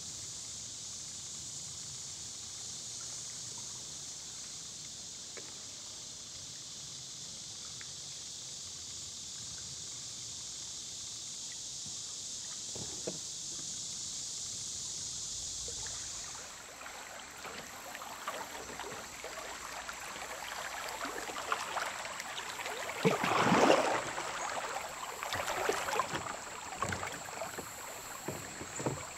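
A steady high-pitched drone, then, from about halfway, water rippling and splashing around a kayak on a shallow river. Paddle splashes come on and off, loudest about three-quarters of the way through.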